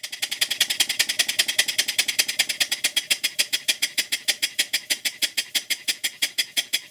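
Stuart Models 5A model steam engine running steadily, its exhaust giving a quick, even beat of short hissing puffs about eight or nine times a second. The engine is running in and getting smoother.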